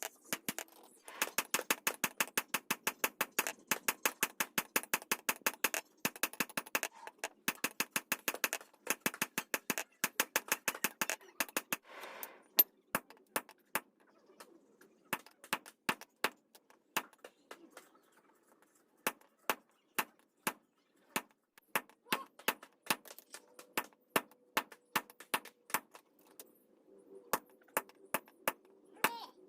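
Light hammer strikes on metal in quick succession, about five a second for the first twelve seconds, then slower, spaced taps.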